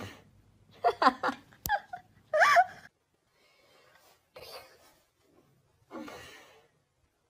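A person's voice making short, high-pitched exclamations, then two breathy gasps. A sharp click comes about a second and a half in.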